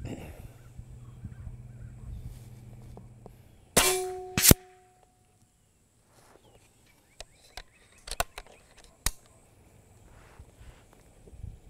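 Benjamin Bulldog .357 PCP air rifle firing one shot: a sharp report about four seconds in with a short ringing tail, and a second sharp crack about half a second later. A few light clicks follow some seconds after.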